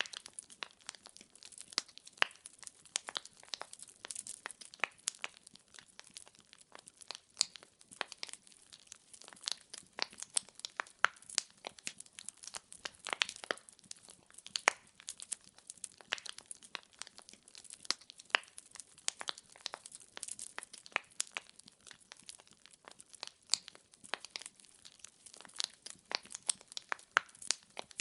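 Wood fire burning in a fireplace: a steady stream of irregular small crackles and snaps from the burning logs over a faint hiss, with a few louder pops.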